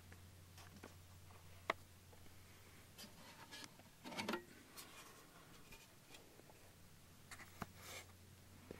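Faint camera handling noise while the camera is carried: a few sharp clicks, the loudest about two seconds in, and a brief rustle about four seconds in, over a low steady hum.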